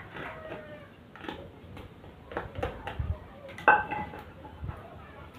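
Kitchen utensils and a large bowl knocking and clinking as peyek ingredients are handled and mixed by hand, with scattered short knocks and one sharp, briefly ringing clink a little before four seconds in.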